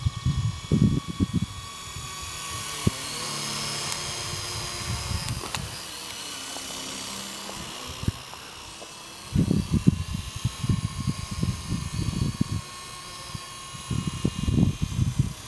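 Small electric RC helicopter (WLtoys V912) flying overhead, its motor and rotor giving a thin whine that wavers in pitch as it manoeuvres. Gusts of wind buffet the microphone with low rumbles at the start, in the middle and near the end.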